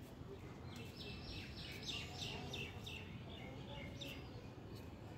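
A bird calling a run of about a dozen short, high notes, roughly four a second, starting about a second in and stopping after about three seconds, over a steady low background rumble.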